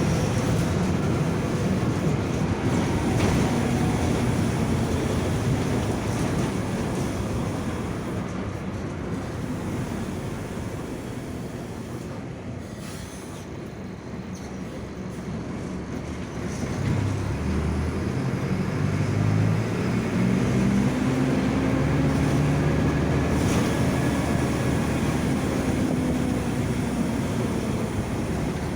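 Mercedes-Benz OF-1722M front-engined diesel bus running with its differential droning. The running noise fades through the first half as the bus slows, then the engine picks up again a little past halfway, its tone stepping up in pitch as the bus accelerates.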